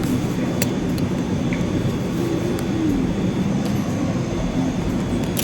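Cinema speakers playing a loud, steady roaring rumble from a film soundtrack, like aircraft engines, with a faint wavering tone through it.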